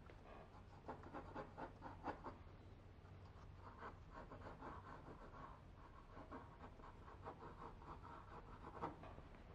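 Graphite pencil sketching on drawing paper: faint, quick scratching strokes in short runs, with one sharper stroke near the end.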